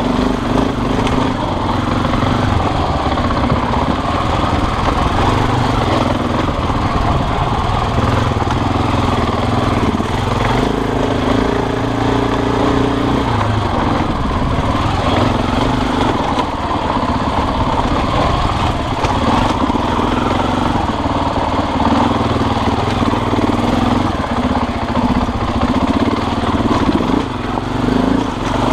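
Small motorcycle engine running while riding, its pitch rising and falling with the throttle, with some wind and rumble over the microphone.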